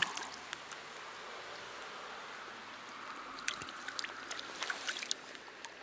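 Stream water running steadily, a rushing hiss, with a few light clicks and taps scattered through.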